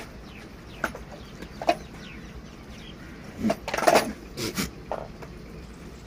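Short farmyard animal calls at intervals: two brief ones in the first two seconds, then a louder cluster of several quick calls around the middle.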